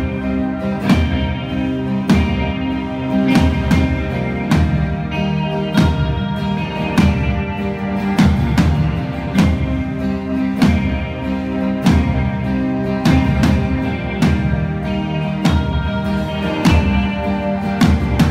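Acoustic guitar strummed in a steady rhythm, played live through a PA, with no singing.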